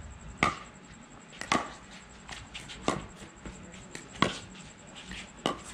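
Pickleball rally: paddles striking the hollow plastic ball, five sharp pocks a little over a second apart, with fainter ticks between them.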